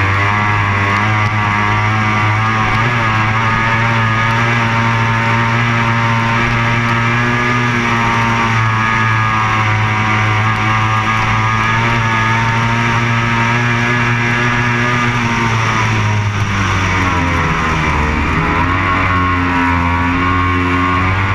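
Racing powerboat's engine running hard at steady high revs, heard from on board with water noise under it. About three-quarters of the way through the pitch sags as the throttle comes off, then climbs back as it is opened up again.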